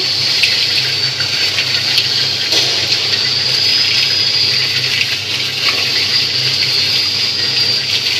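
Peanuts tumbling in a rotating stainless-steel sugar-coating pan: a steady rushing rattle over the machine's low hum, with a thin, steady high whine on top.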